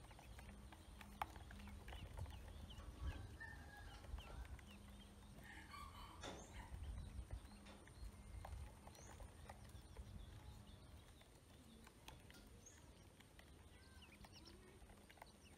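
Faint ducklings feeding from a plastic bowl: irregular small ticks of bills pecking against the plastic, with soft peeps now and then and a short run of peeps about six seconds in.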